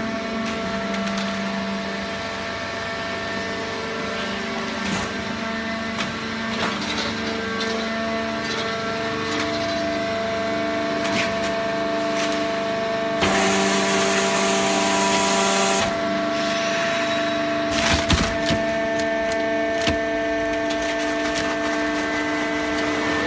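Hydraulic cardboard baling press running: a steady machine hum from the hydraulic power unit, with scattered cracks and creaks of cardboard being compressed. A louder hissing rush comes in for a couple of seconds midway.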